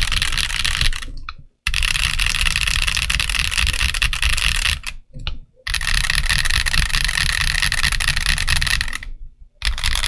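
Fast typing on an Akko ACR Pro 68 mechanical keyboard, an acrylic gasket-mounted case with Akko Crystal switches and ASA double-shot PBT keycaps: a dense run of key clicks. It stops briefly three times, about a second in, about five seconds in and near the end.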